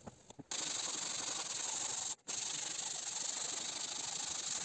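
Hand sanding of cured epoxy and fiberglass on the inside of a plywood canoe hull with a small sanding pad: a steady rubbing hiss that starts about half a second in and breaks off briefly near the middle.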